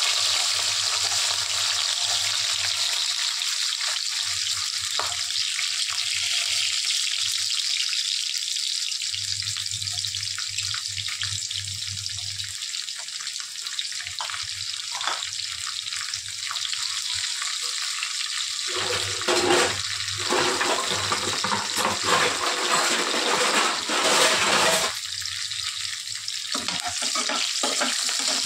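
Diced carrots and green chillies frying in hot oil in a kadai: a steady sizzling hiss, with a few louder surges about two-thirds of the way through.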